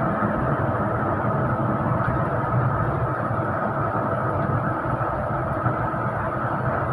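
Steady engine and road noise of a moving intercity bus, heard from on board: an even drone with no distinct events.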